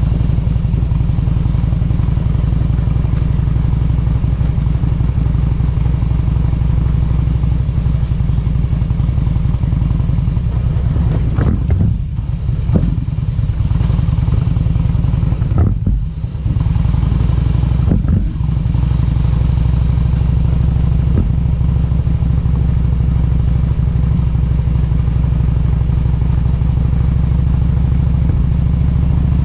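A vehicle engine running at a steady, unchanging pitch, with a few short knocks and brief dips in level about halfway through.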